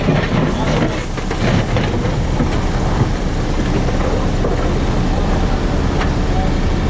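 JCB 4CX backhoe loader working hard with its diesel engine droning steadily, while the bucket breaks up asphalt with irregular clanking and scraping, heaviest in the first couple of seconds.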